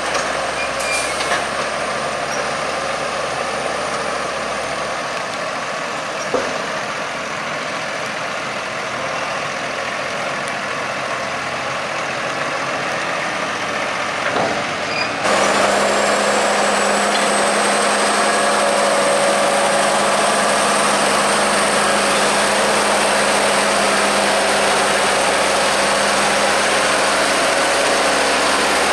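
Tractor engines running. First a Case IH Puma idles while its trailer tips a load of chopped maize. About halfway through the sound changes suddenly to tractors working on the maize clamp: louder and steadier, with a thin high whine.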